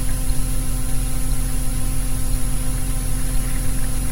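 Steady electrical hum with an even hiss: the background noise of a lo-fi recorded phone call, with no voice on the line.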